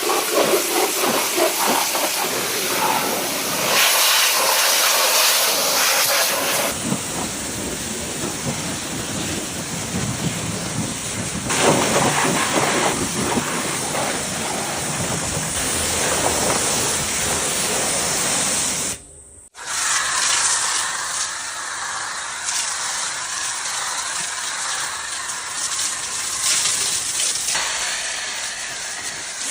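Loud, steady hissing noise, made up of several short stretches that change abruptly from one to the next, with a brief dropout about two-thirds of the way through.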